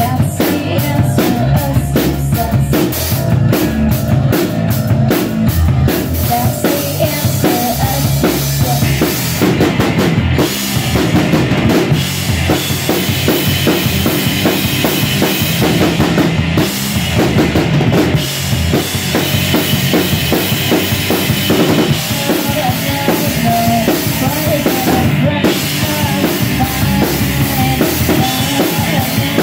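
Live punk rock band playing loudly: a full drum kit with cymbals and bass drum driving under electric guitars.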